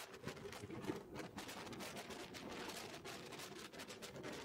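Wind rushing and buffeting the microphone of a camera on a moving motorcycle, a rough, rapidly fluttering noise with road and engine noise faint beneath it.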